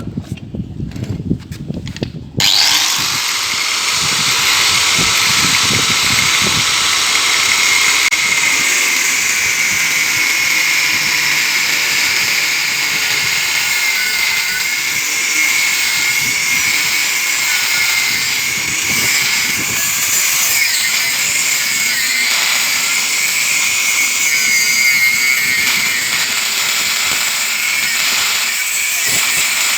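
A few low knocks, then a power tool starts suddenly about two and a half seconds in and runs steadily on metal, a loud high-pitched whine with a steady whistling band through it.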